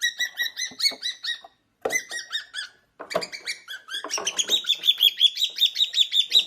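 Pet bird chirping in quick runs of short repeated calls, broken by two brief pauses. After about four seconds the calls come louder and higher-pitched in a fast steady series.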